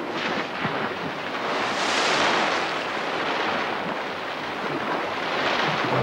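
A long, rushing splash of water from an osprey's plunge dive, swelling about two seconds in and again near the end.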